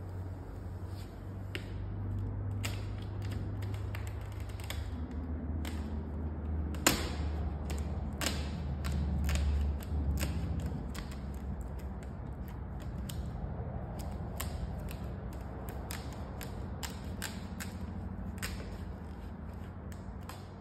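Vinyl wrap film being worked onto a car door with a squeegee: scattered creaks and sharp clicks and ticks as the film is pressed, stretched and lifted, the loudest a sharp click about a third of the way in, over a steady low hum.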